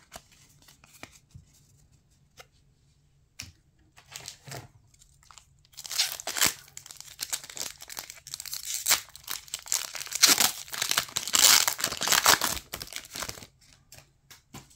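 Foil wrapper of a Pokémon TCG Brilliant Stars booster pack crinkling and tearing as it is ripped open, loud and crackly for about eight seconds from about six seconds in. Before that, a few faint taps of trading cards being handled.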